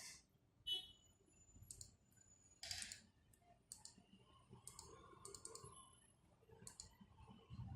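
Faint, sparse clicks, about one a second, with a quick run of three or four about five seconds in.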